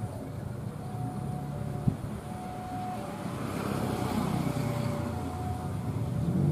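Low, steady engine rumble that swells briefly in the middle, over a railway level-crossing warning signal alternating between two notes, each held about half a second.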